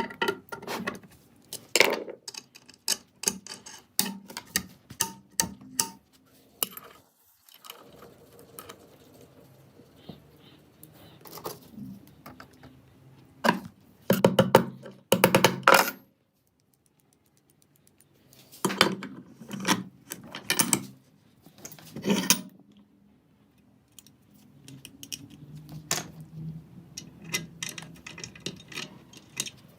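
Irregular metallic clicks, knocks and clinks of small metal parts and hand tools being handled, some ringing briefly, with a short silent pause partway through.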